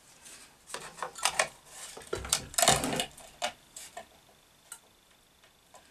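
Clicks and knocks of a SiP 6-inch bench grinder's housing parts being fitted back together by hand: a busy run of knocks, loudest near the middle, then a few scattered ticks.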